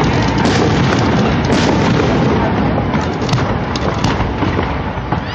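Fireworks going off in a dense, continuous barrage: many overlapping bangs and crackle, easing slightly near the end.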